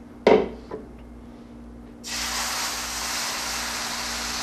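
A hot sauté pan sizzling and hissing as deglazing liquid is poured into it. The sizzle starts suddenly about two seconds in and holds steady. Just after the start there is a brief sharp sound, and a faint steady hum runs underneath.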